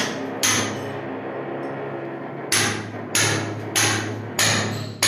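Hammer strikes on a hard surface during plumbing work: two blows, a pause of about two seconds, then a steady run of blows about every 0.6 s, each ringing briefly, over a steady low hum.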